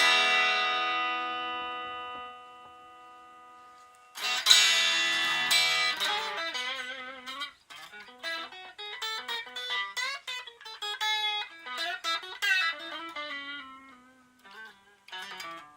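Electric guitar played through a Raizin Sound Original Overdrive Distortion pedal. A chord rings and fades, another chord is struck about four seconds in, then a run of single notes with vibrato and bends.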